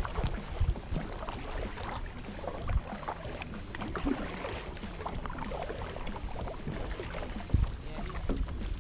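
Sounds of a kayak on a river: irregular small splashes and knocks against the hull over a low rumble.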